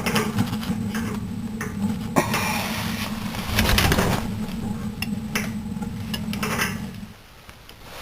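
Suburban propane furnace's main burner burning with a steady low rumble, with clicks and knocks from the gas control knob being handled; about seven seconds in the rumble cuts off as the knob is turned down to pilot and the main burner goes out.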